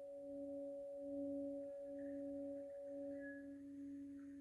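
Faint background tone track: steady pure tones, a low one near 280 Hz with two higher ones above it, gently wavering in level like a singing bowl or tuning fork drone.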